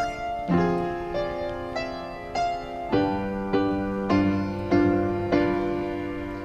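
Soft piano music: single notes and chords struck about every half second or so, each ringing and fading.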